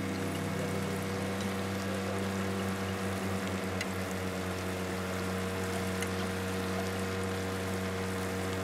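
Small boat's motor running at a steady pitch, under a constant hiss of water and rain.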